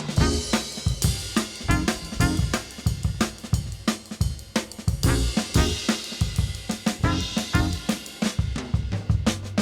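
Background music with a busy drum kit beat: hi-hat, snare and bass drum under pitched instruments.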